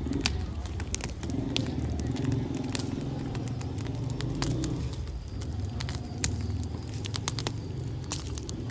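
Open wood fire burning, with sharp crackles and pops scattered over a steady low rumble.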